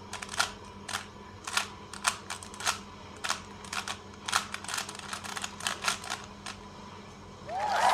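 Rubik's cube being turned through an algorithm: a quick, irregular run of plastic clicks from the layers turning, about two to three a second. Music comes in right at the end.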